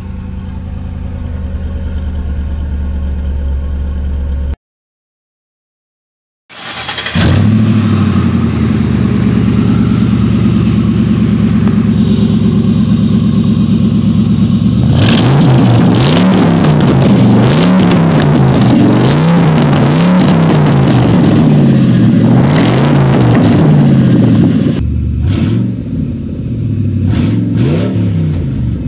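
A Ford Crown Victoria Police Interceptor's V8 idling quietly on its stock exhaust, broken off by about two seconds of silence. Then a loud V8 exhaust idles steadily and is revved over and over, each rev rising and falling about once a second, before settling back to idle near the end with a few sharp clicks.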